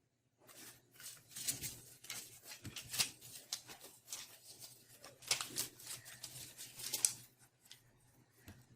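Desk-work handling sounds at close range: an irregular run of quick clicks and rustles that starts about half a second in and thins out near the end, over a faint low steady hum.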